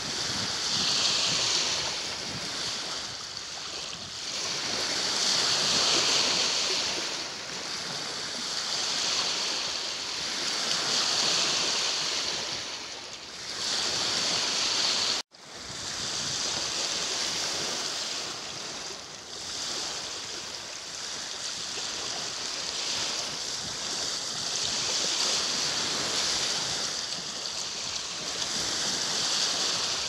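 Small lake waves breaking and washing onto a pebbly beach, swelling and fading every three to five seconds. The sound cuts out for a split second about halfway through.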